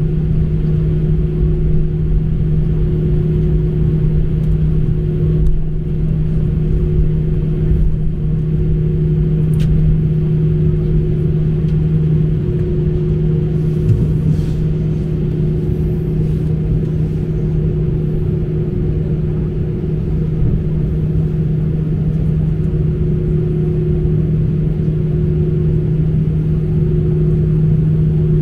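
Airbus A319 airliner heard from inside the cabin: a steady, loud low drone of engines and airflow with a constant hum.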